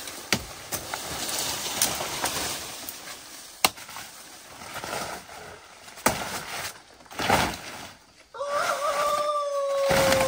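Machete chopping through leafy plant stems, with sharp cracks every second or two amid the rustling of large leaves being pulled and gathered. A steady whistle-like tone holds for about two seconds near the end.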